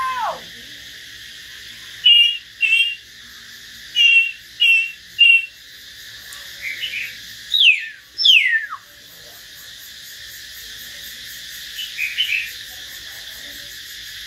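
Caged hill myna and white-rumped shama calling in turn: an arched falling call at the start, clear whistled notes in groups of two and three, then two loud steeply falling whistles about eight seconds in, and a few short notes near the end, over a steady high hiss.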